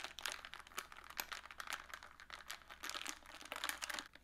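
Ice cubes clinking and rattling against a tall drinking glass as a straw stirs the iced coffee and milk: a quick, irregular run of small clicks that stops suddenly at the end.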